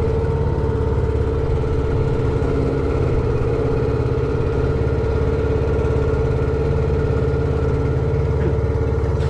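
Outboard motor of a small aluminium boat running at a steady, unchanging speed.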